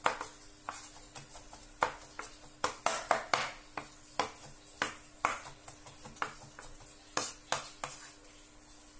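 Kitchen knife mincing crushed garlic on a bamboo cutting board: the blade knocks sharply and irregularly on the wood, in quick runs of strokes. The knocks thin out near the end.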